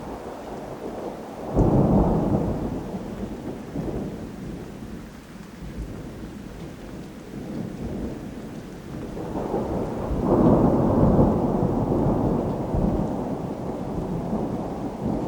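Thunder rumbling over steady rain: one roll breaks in suddenly about a second and a half in, and a second, longer roll builds up around ten seconds in and slowly dies away.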